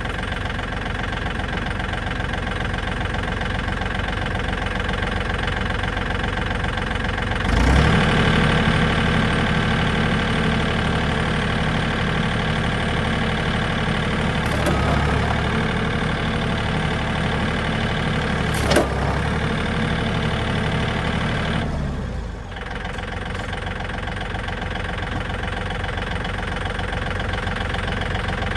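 Tractor engine idling, then revving up about seven seconds in and holding there for some fifteen seconds while it pulls on a damaged car chassis to straighten it, before dropping back to idle. Two sharp cracks come from the strained chassis or rigging during the pull.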